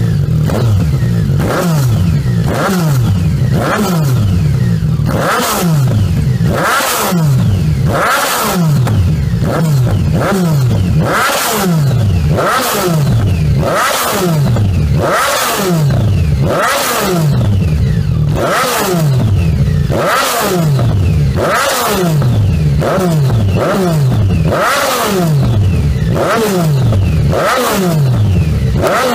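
Yamaha MT-09/FZ-09 inline-three engine revved through an aftermarket exhaust in quick repeated throttle blips. There is about one blip every one and a half seconds, each one spiking up and then falling back toward idle.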